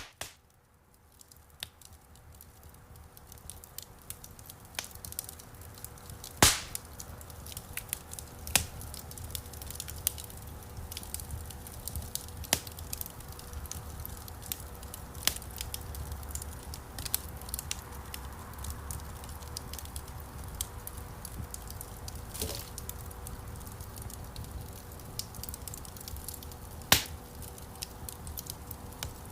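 Wood campfire crackling, with frequent small snaps and a few loud pops over a low steady rumble of the flames. It fades in over the first few seconds.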